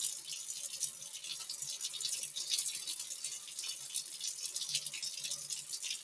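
Kitchen faucet running steadily into a sink, with soapy hands rubbing together as they lather.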